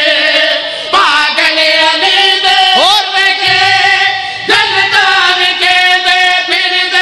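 Men's voices chanting a qasida in a melodic recitation style, with long held, wavering notes that break off briefly about a second in and again around four and a half seconds in.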